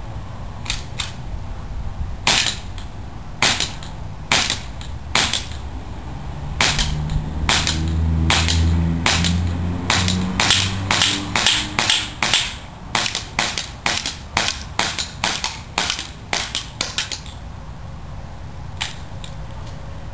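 Tokyo Marui Sig P226 gas blowback airsoft pistol firing on green gas: a string of sharp cracks from the shots and BBs striking the targets. The cracks come a second or so apart at first, then about three a second, and stop a few seconds before the end. A low drone swells and fades in the background through the middle.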